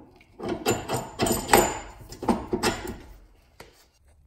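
Long steel hub bolt being worked through the rear knuckle and the polyurethane bushings of the alloy rear control arms: a series of short scraping knocks of metal on metal, with a little ringing.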